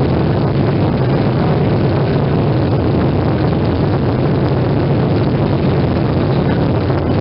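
Boeing 737 turbofan engines at takeoff climb power, heard from inside the passenger cabin as a steady, loud rush of noise with a low hum underneath.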